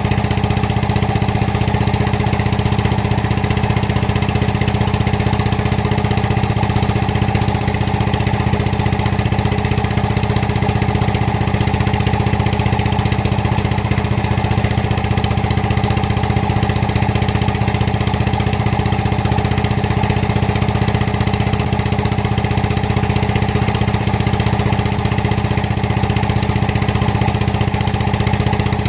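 Excavator's diesel engine idling steadily at an even, unchanging speed.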